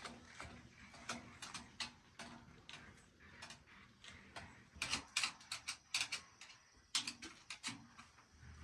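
Irregular light clicks and knocks of hand tools and metal parts being handled, with a quicker, louder run of them about five to six seconds in.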